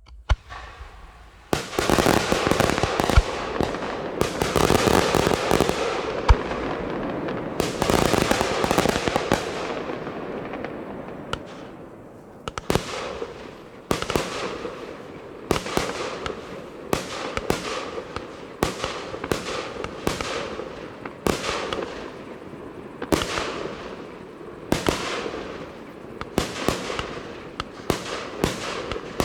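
Fireworks display: a dense barrage of overlapping bursts for the first ten seconds or so, dying down, then single sharp bangs about once a second, each trailing off.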